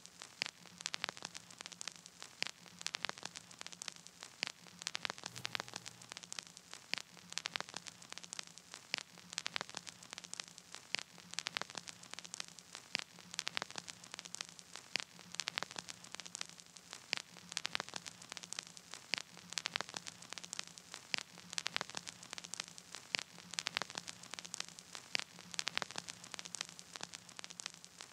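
Crackling static: irregular clicks, several a second, over a faint hiss and a steady low hum, with no music playing.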